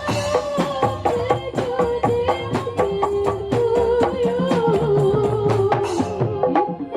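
Modern marawis ensemble playing: frame drums and hand drums strike a brisk, steady rhythm under a sustained melody line that bends and wavers in pitch.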